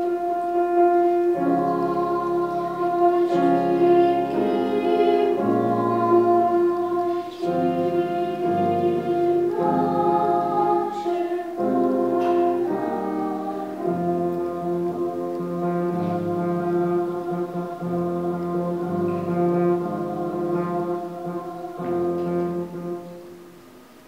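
Children's vocal ensemble singing with piano accompaniment, holding one long note while the piano chords change beneath it. The sound dies away near the end as the song finishes.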